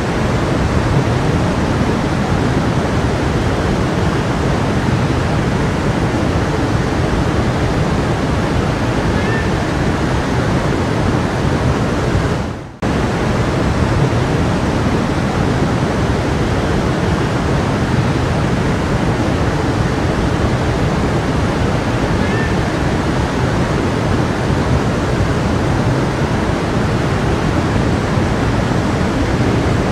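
A stream's water rushing and splashing steadily. About a third of the way in, the sound fades down briefly and cuts straight back in.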